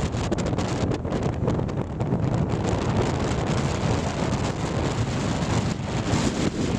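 Strong wind buffeting the microphone, a steady dense rumble with gusty flutter.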